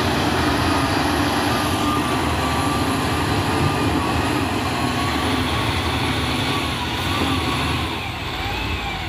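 Wheel loader's diesel engine running steadily under a wash of noise, with a thin high tone that wavers in pitch over it.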